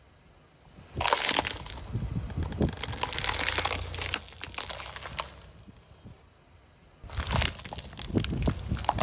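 Car tyre rolling over a plastic cup covered in candy-coated chocolates, the plastic and the candy shells crackling and crunching as they break. There are two spells of dense crackling, one starting about a second in and lasting about three seconds, another starting about seven seconds in.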